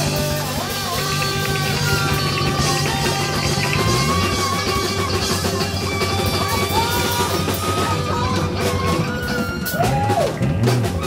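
Live band with tenor saxophone, trumpet, electric guitar and drum kit playing a rock tune: a melody line over a steady bass line, with the drums growing busier near the end.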